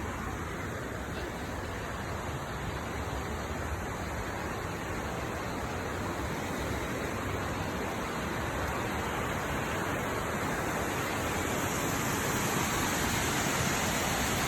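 Steady rushing of a waterfall, a continuous even roar of falling water that slowly grows louder as it is approached.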